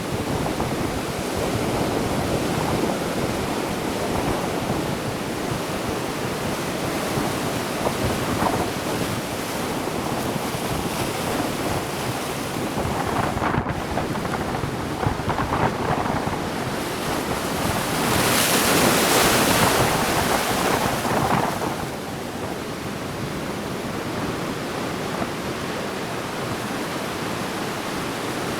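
Sea waves washing onto the shore, with wind blowing over the microphone. One wave breaks and washes in louder about two-thirds of the way through.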